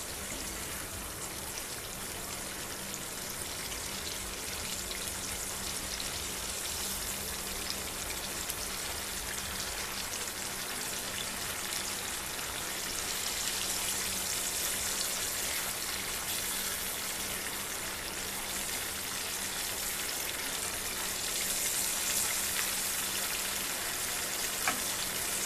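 Oil and mustard-paste masala sizzling with a steady fine crackle in a frying pan around raw boal fish pieces, swelling louder about halfway through and again near the end. A faint steady hum runs underneath.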